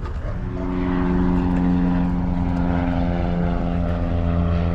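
Propeller aircraft flying over, a steady engine drone that swells over the first second and then holds, its pitch slowly falling as it passes.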